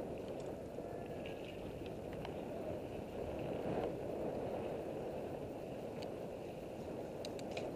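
Wind buffeting the camera microphone over the rumble of a Commencal Meta AM mountain bike's tyres rolling across a bumpy dirt and grass track. A few sharp clicks from the bike come near the end.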